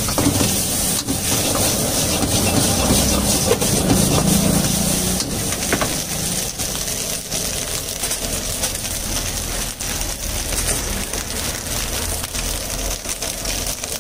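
Fried rice stir-frying in an iron wok over a gas flame: a steady burner roar and sizzle, with repeated scrapes and clinks of a metal ladle against the wok.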